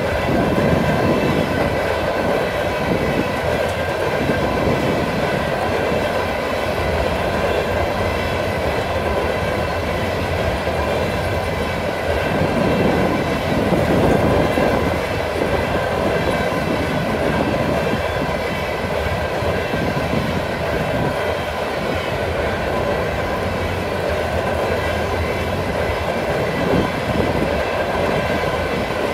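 Railway flatcars loaded with wind turbine blades rolling steadily past on a curve: steel wheels rumbling on the rails, with a steady ringing tone above the rumble.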